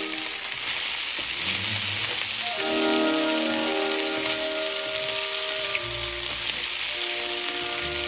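Shrimp and bell peppers sizzling steadily in a hot cast-iron skillet as they are stirred with a wooden spatula, under background music with held notes.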